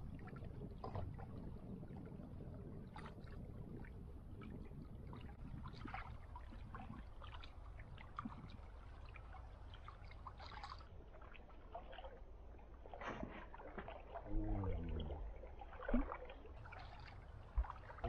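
Small waves lapping faintly against a rocky lake shore over a steady low wind rumble, with scattered light clicks and taps. A short, louder low murmur comes near the end.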